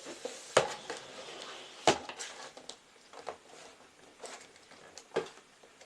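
A camera tripod and its packaging being handled: a series of sharp clicks and knocks, two loud ones about half a second and two seconds in, then fainter ones.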